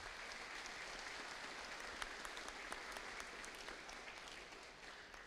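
Faint audience applause, many hands clapping in a steady patter that dies away near the end.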